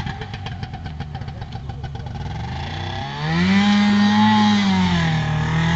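Snowmobile engine in a golf cart running at lower, uneven revs, then revving up sharply about three seconds in and holding a high steady pitch with a slight dip near the end as the cart accelerates.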